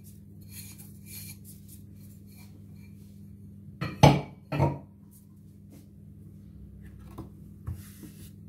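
Kitchen utensils being handled as a dry flour-and-sugar mix is tipped from a glass bowl into a metal baking tray: soft faint rustling, then two sharp clinks about four seconds in as the metal spoon and glass bowl are put down, and a few lighter ticks near the end. A low steady hum runs underneath.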